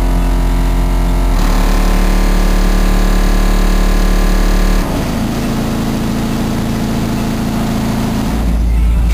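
FI Audio BL18 18-inch subwoofer, driven by an Arc Audio 2300se amplifier in a large ported box tuned to 28.5 Hz, playing loud held bass notes inside a closed pickup cab. It is heard from outside, and the pitch steps to a new note about every three to four seconds.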